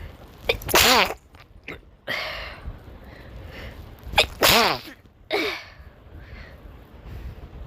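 A person sneezing twice, loud voiced sneezes about three and a half seconds apart, each with a sharp catch of breath just before it. Quieter breathing sounds come between the sneezes.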